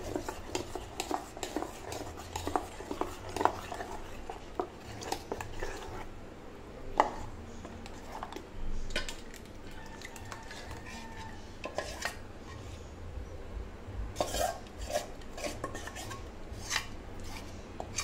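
Steel ladle scraping and clinking against a stainless-steel pot and bowl as thick appam batter is scooped out, with irregular metal taps throughout, busiest at the start and again near the end.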